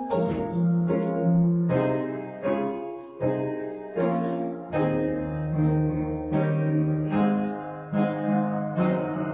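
Piano or keyboard playing a slow, steady sequence of chords, with a new chord struck about every three-quarters of a second.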